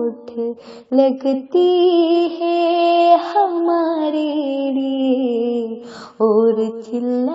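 A female voice singing a slow song in long, wavering held notes. The singing breaks off briefly about a second in and again near six seconds.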